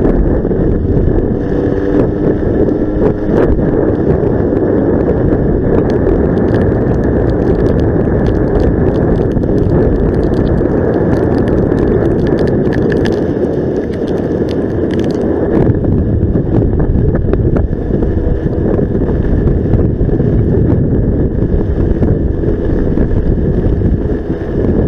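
Heavy wind noise on the microphone from riding a Honda Gyro X three-wheeled scooter in typhoon wind, with the scooter's small engine running underneath. The noise is loud and steady, with scattered light ticks.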